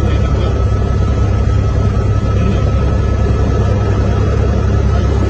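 Helicopter running steadily, heard from inside the cabin: a loud, low rotor-and-engine rumble with a thin steady whine above it.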